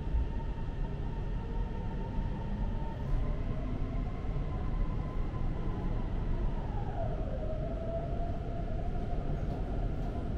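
Guangzhou Metro Line 18 train running through its underground tunnel, heard inside the car: a steady rumble with a high electric whine that slides down in pitch about seven seconds in and then holds steady.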